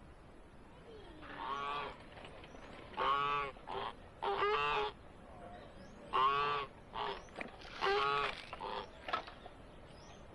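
Geese honking: about nine loud, nasal honks in irregular bursts, some short and some held for about half a second.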